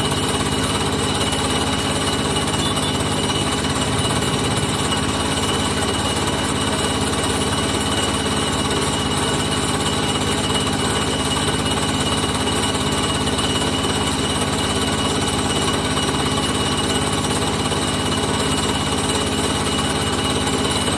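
Engine running steadily at one constant speed with a fast, even chugging pulse.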